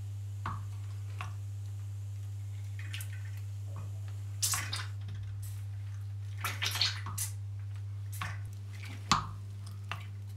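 Hand-lever central lubrication pump on a Schaublin 22 milling machine being pulled, pumping oil through a newly fitted hose. It gives scattered clicks and short squishy, wet sounds, over a steady low hum.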